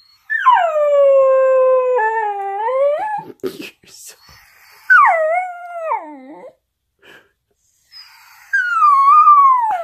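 Schnauzer howling: a drawn-out howl of about three seconds that falls, holds and rises at its end, a shorter falling howl about five seconds in, and a third starting near the end. A couple of sharp knocks come between the first two howls. It is the howling of a dog missing its owner.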